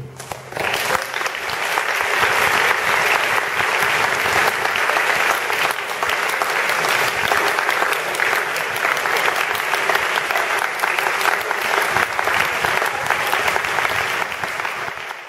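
Concert audience applauding, starting about half a second in and going on steadily.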